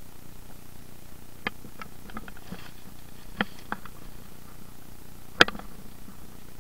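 A few scattered clicks and light knocks, with one sharp knock about five and a half seconds in, over a steady low hum.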